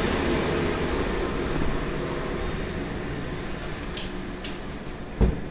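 A steady rushing, rumbling noise that slowly fades, with a few faint ticks and then a single sharp thump about five seconds in.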